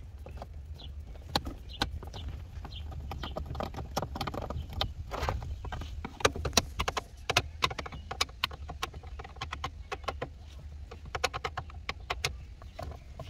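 Irregular sharp clicks and scrapes of a screwdriver working screws out of the plastic steering column cover, over a low steady hum.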